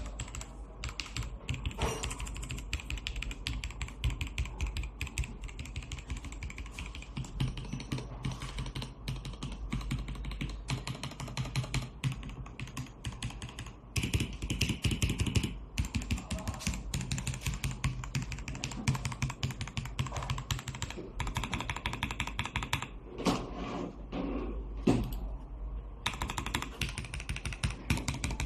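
Mechanical keyboard being typed on quickly: a dense, continuous clatter of key switches clicking and bottoming out, with a few brief pauses.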